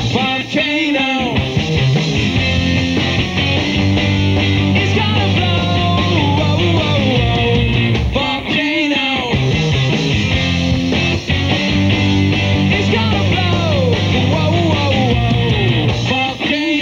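Three-piece rock band playing live: an instrumental break of distorted electric guitars with sliding, bending notes over a driving drum kit.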